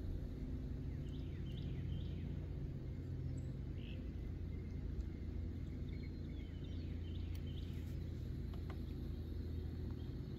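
Outdoor ambience: a steady low rumble, with birds giving short chirps a few times, about a second in, near four seconds and again around seven seconds.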